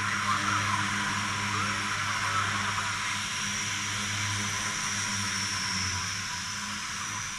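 A C-130J Super Hercules's four Rolls-Royce AE 2100 turboprops running steadily at low power, giving a low propeller hum under a broad turbine hiss.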